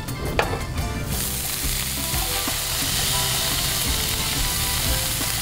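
Hot sauté pan of garlic, butter and dry chili sizzling loudly as liquid goes in, the sizzle breaking out suddenly about a second in and then hissing steadily as the pan steams.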